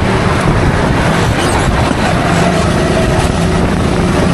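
Racing kart engine running hard at speed, with wind rushing over the microphone; the engine note climbs gently in the second half.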